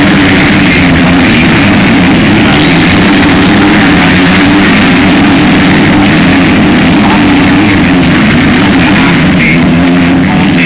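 Motocross bikes' engines running loud and steady as the riders race past on the dirt track.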